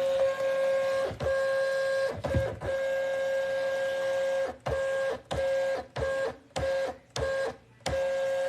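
Rollo X1040 thermal label printer feeding the freshly loaded labels through: a steady motor whine with a few clicks, running for about four seconds, then stopping and starting in several short runs before running on again.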